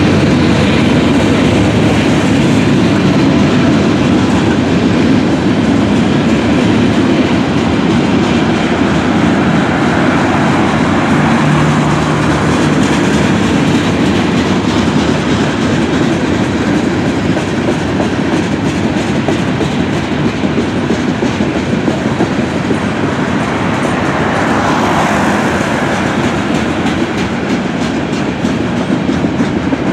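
Freight cars of a mixed train rolling steadily past at close range: a continuous rumble of steel wheels on the rails with fast, even clicking as the wheels cross rail joints.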